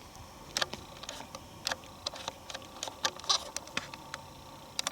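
Dry forest leaves crunching and crackling underfoot in irregular, sharp crackles.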